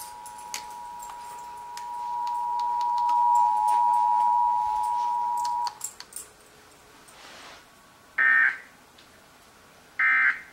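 Emergency Alert System two-tone attention signal, a steady dual tone that swells louder and then cuts off suddenly about six seconds in. It is followed by two short, buzzy SAME digital data bursts about two seconds apart.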